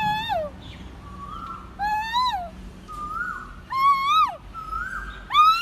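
An animal calling over and over: four loud cries, each about half a second long, rising and then falling in pitch, roughly every one and a half to two seconds, with fainter short tones between them.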